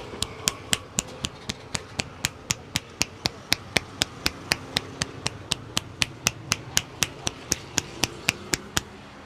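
Hands striking a person's head in a head massage: a steady beat of sharp claps, about four a second.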